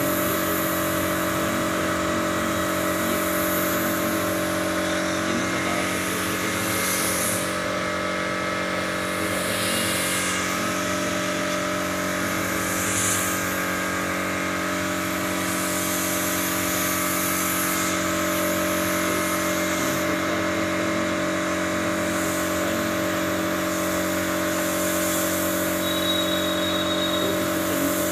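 Air compressor motor running steadily under the hiss of a compressed-air spray gun spraying wood polish, the hiss swelling and easing as the trigger is worked in passes.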